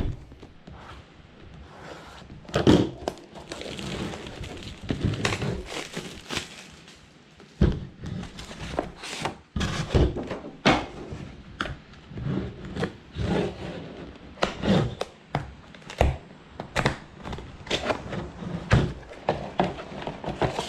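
Cardboard box and packaging being opened and handled: irregular knocks, thunks and rustles.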